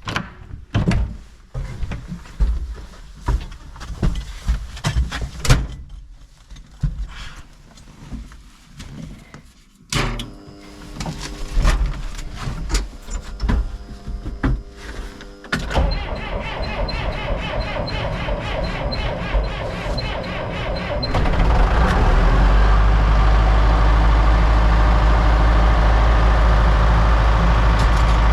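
Knocks and cab-door thunks. Then the Case IH Maxxum 5120 tractor's starter cranks its diesel engine in a −5 °C cold start. The engine catches about three-quarters of the way through and runs steadily and loud.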